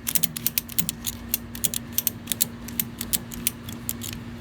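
Ratchet strap's ratchet handle being cranked back and forth, the pawl clicking several times a second in quick runs. The strap was not pulled tight first, so the loose webbing is winding onto the spool and starting to bind up.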